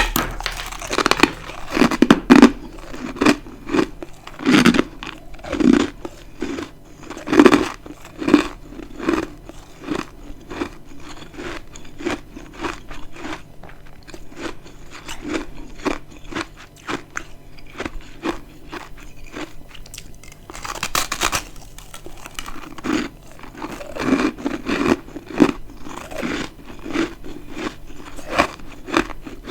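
Close-miked eating of dry, crispy freezer frost chunks: loud crackling crunches as pieces are bitten, with steady chewing about twice a second in between. Bursts of crunching come every few seconds, with a quieter stretch of chewing in the middle.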